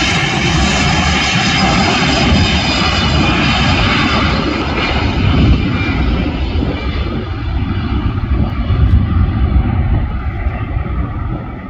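Airbus A320-family jet's engines at takeoff power on the runway roll: a loud, steady jet roar with a high whining fan tone. The whine fades after about seven seconds as the aircraft moves away, while the deep rumble stays.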